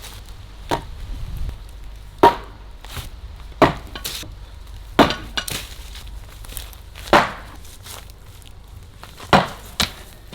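A 3.6 kg steel sledgehammer striking a brick letterbox pillar, about half a dozen sharp blows one to two seconds apart. These are the first strikes, and the brickwork is not yet breaking.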